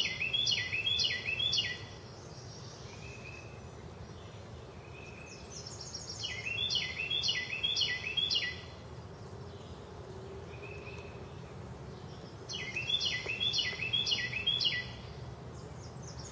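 A songbird singing a quick run of repeated notes, about two seconds long, three times with pauses between, and a few faint single notes in the gaps. A steady low background rumble runs underneath.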